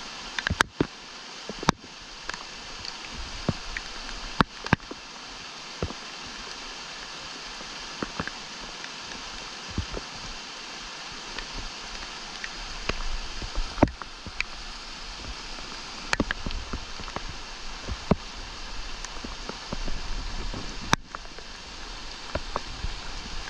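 Small mountain creek running and splashing over rocks in a steady rush, with sharp clicks and knocks scattered throughout, the loudest near the start and near the end.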